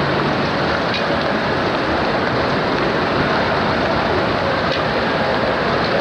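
Steady rushing noise of downtown street traffic, with no single sound standing out.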